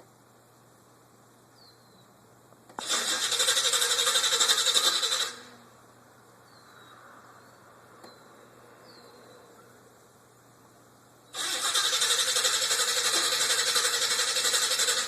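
Chevrolet El Camino engine being cranked on the starter in two attempts, about two and a half seconds and then nearly four seconds long, cutting off each time without the engine catching: a hard start.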